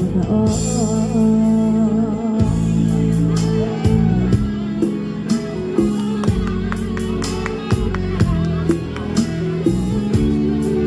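Backing music with guitar, bass and a steady drum beat, with no clear vocal line: an instrumental stretch of a song.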